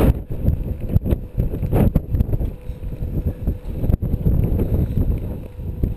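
Gusting wind buffeting the camera microphone: a low rumble that rises and falls unevenly.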